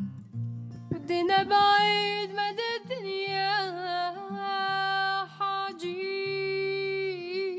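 A woman singing the chorus of a song over acoustic guitar. Her voice comes in about a second in, holding long notes with vibrato.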